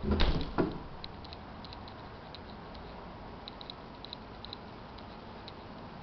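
Handling noise from a handheld camera being carried: two thumps shortly after the start, then faint scattered light clicks, some in pairs, over a low steady hiss.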